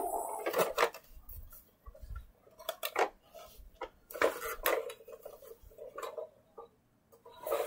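Scattered light clicks and knocks of small hard plastic toys being handled and set down, irregular with short quiet gaps between them.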